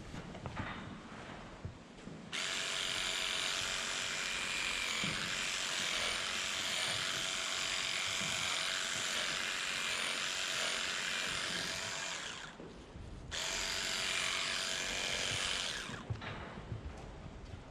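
Electric livestock clippers buzzing steadily as they cut the hair of a cow's tail switch. The motor starts about two seconds in, cuts out briefly past the middle and starts again, then stops near the end, leaving light knocks.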